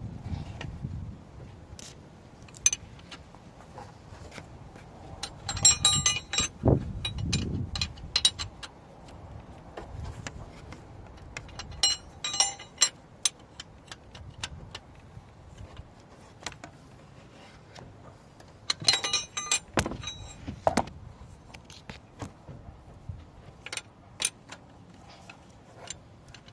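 Metal hand tools clinking and rattling during car repair work, in several short clusters of metallic jingling with scattered clicks and knocks between them.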